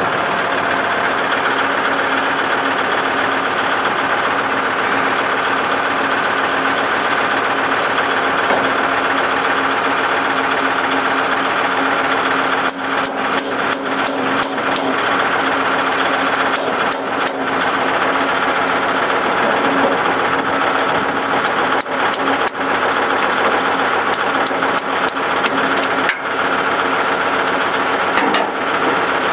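Kubota tractor's engine running steadily with the PTO engaged to drive the snow blower. From about halfway through, scattered sharp clicks cut in over the engine.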